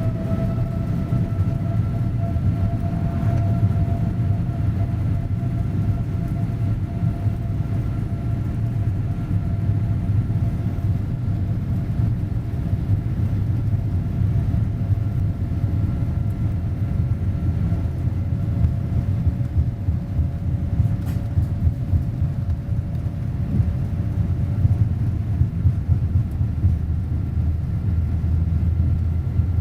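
Boeing 787-8's Rolls-Royce Trent 1000 engines at takeoff thrust, heard inside the cabin. A steady whine that has just finished rising holds over a deep, constant rumble.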